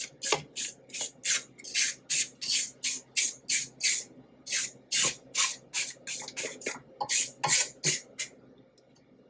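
A spatula scraping cake batter down the sides of a stainless steel stand-mixer bowl, in quick repeated strokes of about three a second that stop shortly before the end.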